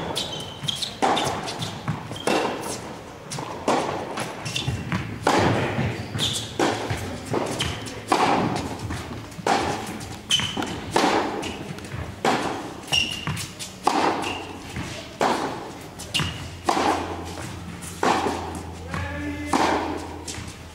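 Tennis balls being struck by racquets and bouncing on an indoor hard court, in a steady run of hits and bounces about once a second that echo in the hall.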